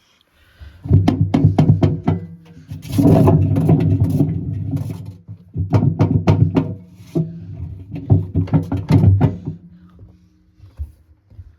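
A machine running with a low motor hum and rapid, irregular clattering knocks that come in several surges and stop shortly before the end, the knocking put down to bad bearings.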